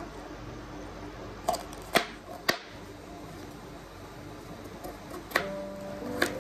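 Kitchen knife chopping green beans and a carrot on a cutting board: sharp knocks of the blade hitting the board, three about half a second apart around two seconds in, then two more near the end.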